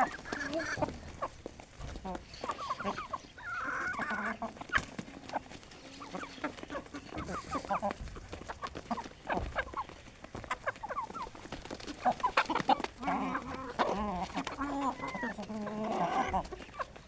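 Aseel hens clucking and calling, many short calls overlapping, busiest near the start and again in the last few seconds, with scattered sharp taps among them.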